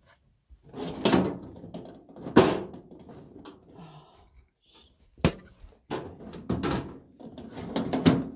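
Rummaging in a drawer for tools: the drawer handled and things knocked and clattered about, with a sharp knock about two and a half seconds in, another about five seconds in, and a quick run of clatters near the end.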